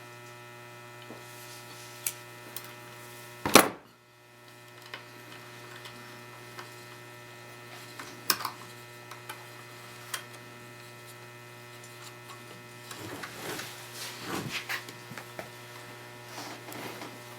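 Steady electrical mains hum, with a few scattered small clicks and one sharper knock about three and a half seconds in.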